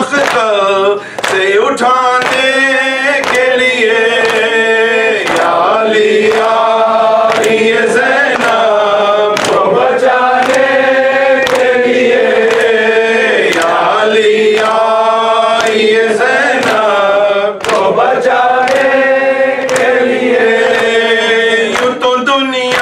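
A man chanting an Urdu mourning lament (noha) through a microphone and PA, in long, held, wavering notes, with a steady beat about once a second underneath.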